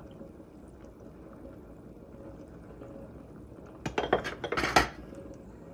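A short cluster of clinks and clatters of glass and kitchen utensils, lasting about a second near the end, over a low steady background.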